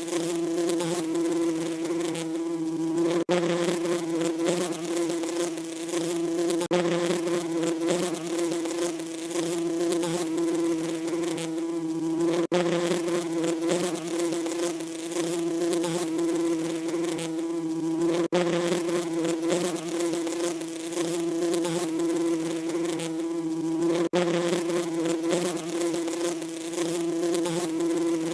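Bees buzzing in a steady, continuous drone, with very brief dropouts about every six seconds.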